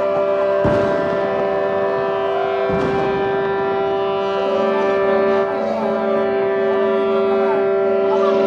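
Many boats' horns held together in a steady, discordant chord, with two firework bangs about one and three seconds in.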